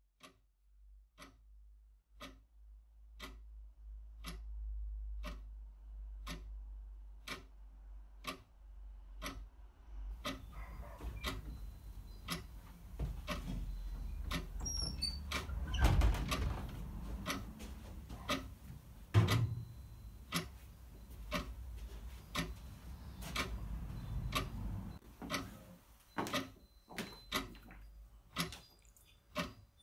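Clock ticking steadily, about two ticks a second. Partway through, a low rumble and some background noise rise under the ticking and fade again near the end.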